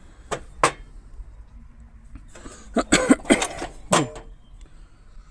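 Metal hand tools and toolbox clanking as they are handled and lifted out: two knocks in the first second, then a quick cluster of clanks around three to four seconds in, the last one ringing briefly.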